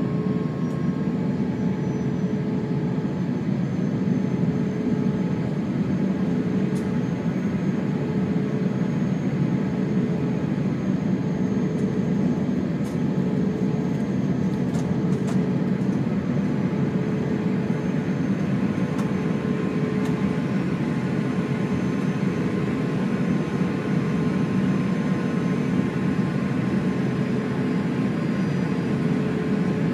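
Steady cabin noise inside an Airbus A350-900 on the ground before take-off: an even rush from its engines and air system running at low power, with faint steady hum tones and a few light ticks midway.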